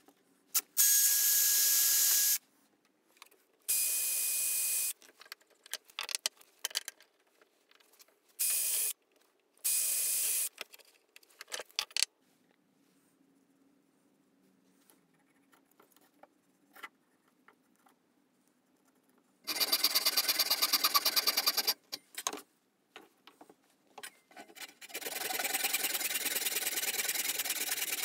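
A drill boring into a maple saw-handle blank in several short bursts, each starting and stopping abruptly with a steady whine, over the first ten seconds or so. After a quiet stretch, a handsaw cuts the blank with fast, even strokes for a few seconds, then again from near the end.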